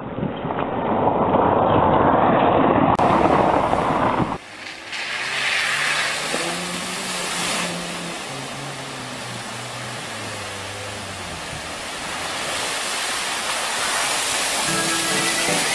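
Loud rushing noise that cuts off sharply about four seconds in, then a Daihatsu Terios 4x4's engine revving, its note rising and falling, as it drives through deep muddy water with water splashing, the splashing louder near the end.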